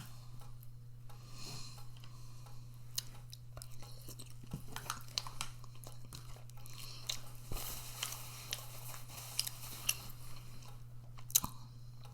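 A person chewing a mouthful of microwaved orange chicken, with many small mouth clicks, over a steady low hum. One sharper click stands out near the end.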